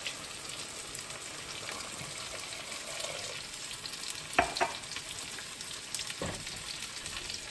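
Black-eyed bean and potato curry sizzling steadily in a stainless steel pot, with water just added for the gravy. A wooden spatula knocks against the pot a few times, twice about halfway through and once more a little later.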